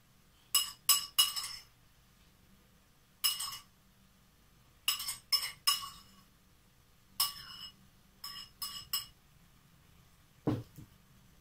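Metal spoon clinking against a white ceramic bowl, about a dozen sharp taps in small groups of one to three, each with a brief ring. A duller knock comes near the end.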